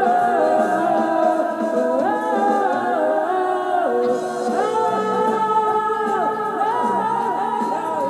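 A man's wordless sung demo of a tune with no instruments, several overlapping vocal lines with notes that slide up into pitch.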